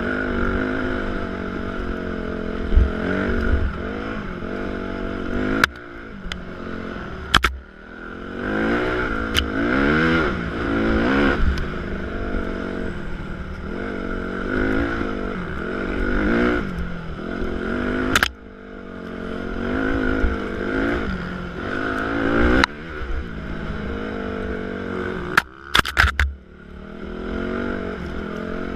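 Dirt bike engine under way, its pitch climbing as the throttle opens and dropping back as it eases off, over and over. A few sharp knocks cut in, some in quick pairs near the end.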